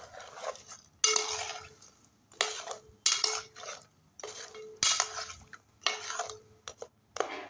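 Metal spoon stirring lumps of jaggery in water in a metal pot, scraping and knocking against the pot in separate strokes about once a second, each with a short ringing note from the pot.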